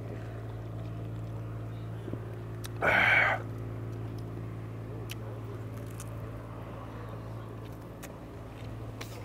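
A loud half-second breathy 'ahh' about three seconds in: a man exhaling with relish after gulping cold beer. A steady low mechanical hum runs underneath, with a few faint clicks of handling and eating food.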